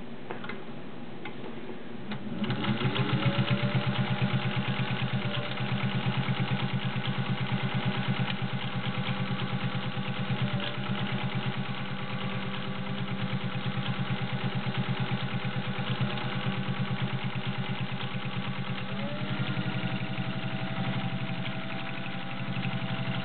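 Singer 201-2 sewing machine's potted direct-drive motor starting about two seconds in, its whine rising as it comes up to speed. It then runs steadily with a fast, even stitching clatter as the needle sews through eight layers of cotton trouser fabric. Near the end it speeds up a little.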